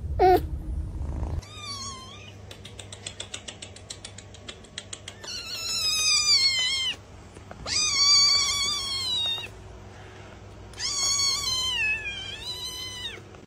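Fluffy kitten meowing: three long, high-pitched meows that rise and fall in pitch, each about a second and a half long. They follow a short cry near the start and a run of rapid soft ticks.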